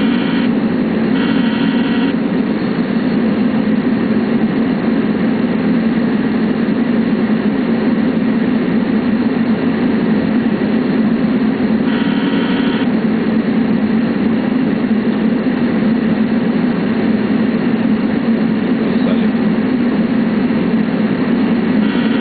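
Steady cockpit noise of an MD-80 airliner: a loud, even rush of engines and airflow. A few short higher buzzing bursts come through it, once at the start, again about a second later, once about halfway through and once at the end.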